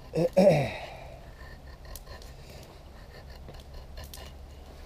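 Convex-ground 80CrV2 carbon-steel knife shaving thin curls off a wooden stick to make a feather stick, in faint scraping strokes with a few small clicks. A brief man's vocal sound comes near the start.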